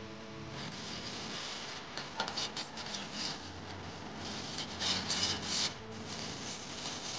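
Metal ladle stirring and scraping against the bottom and sides of an aluminium saucepan of watery jelly mix, with scratchy rasping bursts about two seconds in and again around five seconds.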